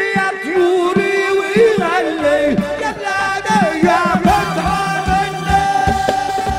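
Instrumental Middle Eastern dance music: a reedy lead melody with quick bends and trills over a steady drum beat, ending on a long held note.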